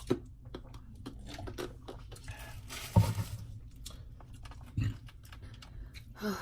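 Small clicks, rustles and light knocks of eating and handling takeout food and containers, with a louder knock about three seconds in and another near five seconds.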